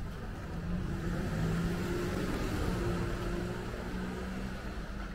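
A motor vehicle passing near the street, its low engine hum swelling from about a second in and fading towards the end.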